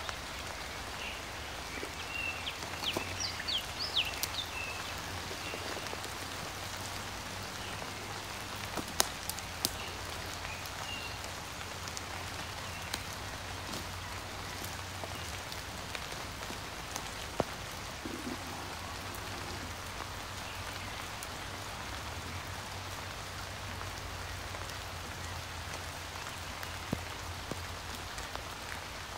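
Steady patter of rain with scattered louder drips, and a few short high chirps a few seconds in.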